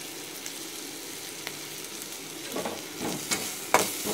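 Sautéed vegetables with coriander leaves sizzling in a metal kadai on a gas burner. After about two and a half seconds a steel spoon starts stirring them, scraping and knocking against the pan, loudest near the end.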